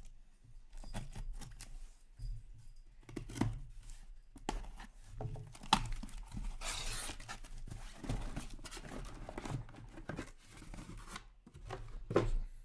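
Packaging of a sealed trading-card box being cut and torn open, with wrapper crinkling and the clicks and knocks of cardboard being handled. The longest stretch of tearing comes around the middle.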